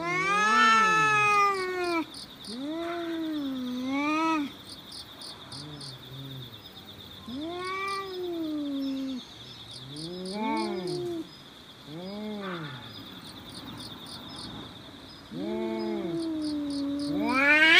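Two cats in a standoff yowling at each other: a string of long, wavering howls that rise and fall in pitch, about eight in all with pauses between, some overlapping, the last swelling louder just before the fight breaks out. Insects buzz steadily behind.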